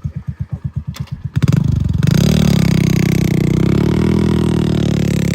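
Heavy diesel engine chugging at idle with an even low beat, then about a second and a half in it is opened up and runs loud and steady under throttle, its pitch rising a little and holding.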